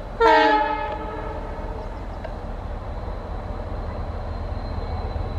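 Indian Railways freight train's locomotive horn giving one short blast about a quarter second in, its pitch sagging slightly as it ends, over the steady low rumble of the train pulling out.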